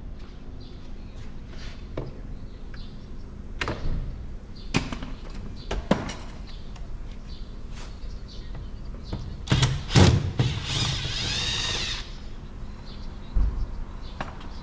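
Plastic retaining clips of a Toyota Highlander's front door trim panel popping loose as the panel is pried off with a flathead screwdriver. Scattered sharp clicks and knocks lead to a loud cluster about ten seconds in, followed by about a second and a half of scraping rasp that stops abruptly, then a low thud.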